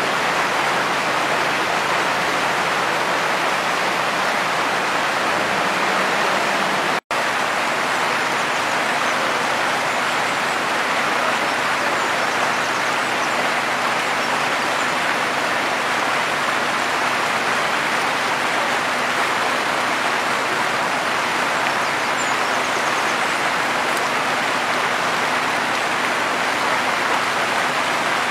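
Steady rush of flowing stream water, with the low hum of a Hidromek backhoe loader's diesel engine idling beneath it. The sound cuts out for an instant about seven seconds in.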